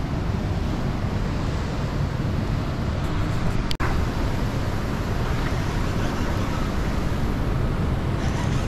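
Steady rushing noise of wind and churning river water below a dam that is releasing water, heaviest as a deep rumble, with a brief break from an edit cut about four seconds in.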